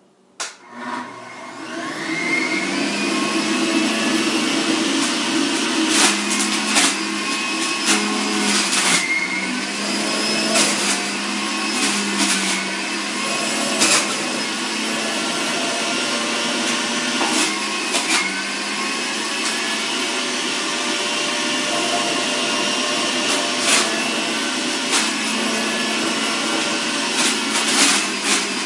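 Electric centrifugal juicer starting up, its motor whine rising over the first couple of seconds, then running steadily while produce is pressed down the feed chute. Irregular sharp cracks and crunches sound as pieces hit the spinning cutter disc.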